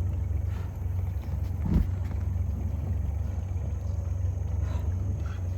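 Boat's outboard motor idling in neutral, a steady low hum, with a single thump a little under two seconds in.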